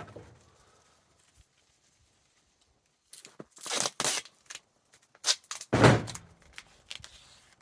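Duct tape pulled off the roll in two short ripping pulls, followed by a thud and a few light knocks as it is handled.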